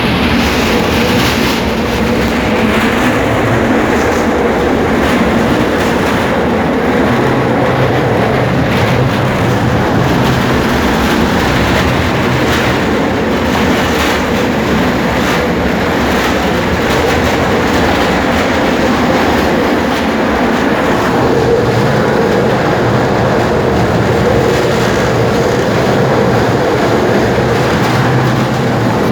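Kryvyi Rih high-speed tram running at speed, heard on board: a steady rumble of wheels on rail with a humming drive tone and irregular knocking and clacking from the wheels.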